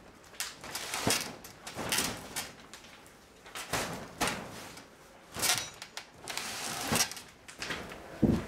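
Irregular short rustles and light knocks, about nine of them spaced unevenly, as a person moves about and handles things in the shed.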